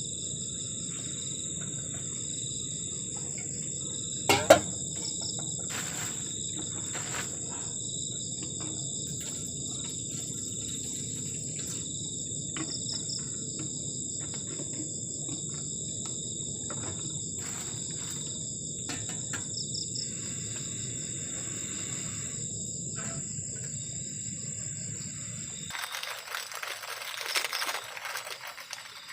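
Crickets trilling steadily in high, pulsing tones over a low background rumble, with scattered small clicks and one sharp knock about four seconds in. Near the end the trilling stops abruptly and a broad hiss takes over.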